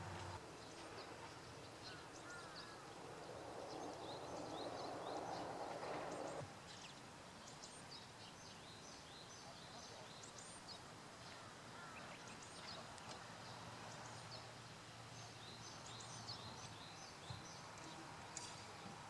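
Faint birdsong: many short, high chirps from small birds, scattered throughout. A rushing hiss runs under them for the first six seconds or so and cuts off suddenly.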